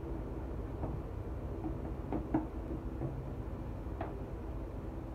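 A few light clicks and taps as hands peel loose plastic burrs from freshly drilled holes inside a plastic 15-gallon barrel, over a steady low hum.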